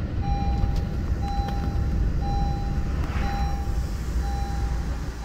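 Steady road and engine rumble inside a moving car's cabin, with an electronic warning chime beeping about once a second, five times, each beep a steady tone lasting most of a second.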